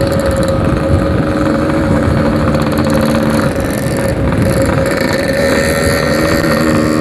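Yamaha RX-King 135cc two-stroke single-cylinder motorcycle engine running while riding at a fairly steady speed, with wind rumble.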